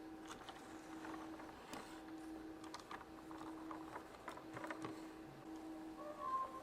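Small plastic toy figures and carriage parts clicking and tapping lightly as they are handled, over a faint steady hum.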